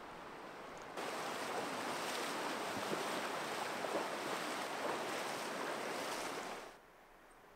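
Shallow river rapids rushing over stones, heard close up. The rushing starts abruptly about a second in and cuts off suddenly near the end.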